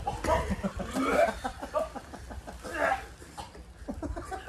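Men coughing and making wordless vocal noises of disgust as they try to eat surströmming (fermented herring), with one louder cry about three seconds in.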